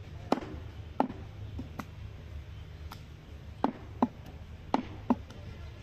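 Heavy curved butcher's cleaver chopping goat meat and bone on a wooden block: about eight sharp chops at uneven intervals, some in quick pairs, over a low steady rumble.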